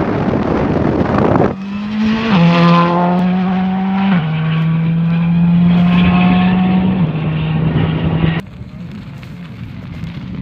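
A rally car goes by loud and close, a rough engine-and-gravel noise. After a cut, a steady droning tone with overtones holds for several seconds, stepping down in pitch a few times. Then a quieter stretch with a car approaching in the distance.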